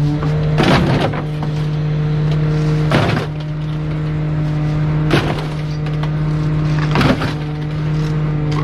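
Rear-loader garbage truck's engine running with a steady low hum, while trash bags are tossed into the hopper, landing with four short crashes about two seconds apart.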